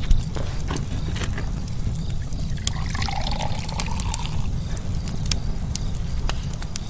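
A drink poured from a bottle into a shot glass, the pour running for about a second and a half near the middle, over a fire crackling with sharp pops and a steady low rumble. A short sharp sound right at the start.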